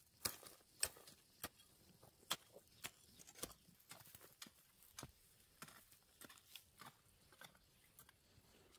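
Two hand hoes chopping into dry, crumbly soil around young maize plants: a quick, irregular run of short scraping strikes, about two a second, fainter in the second half.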